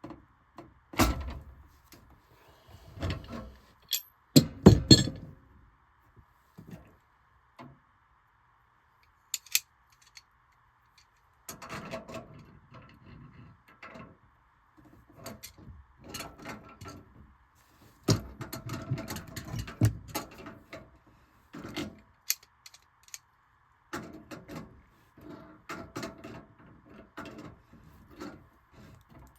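Hand tools and metal parts being handled on a furnace: scattered knocks, clicks and clatter, with the loudest knocks about a second in and around four to five seconds in, then runs of lighter clicking and rustling.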